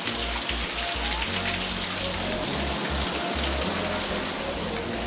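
Stream water running over stones, a steady hiss, under background music with a low bass line.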